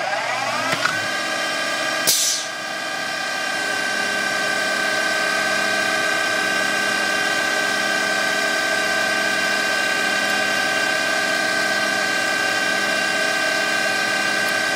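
CNC lathe spindle speeding up, its pitch rising over about a second, then running at a steady speed with a high, even whine while it machines a brass part. A short, sharp burst of noise comes about two seconds in.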